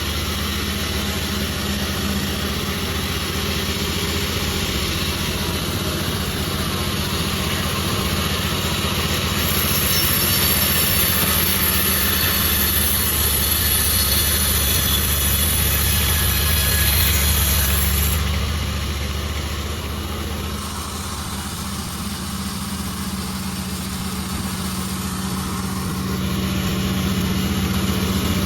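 Sawmill engine running steadily. Between about ten and eighteen seconds in it grows louder and a high hiss joins it, as the saw cuts through jackfruit wood.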